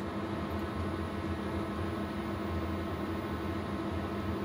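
Steady low hum with an even hiss from the onboard machinery of a three-person Aurora-3C submersible, heard inside its cabin.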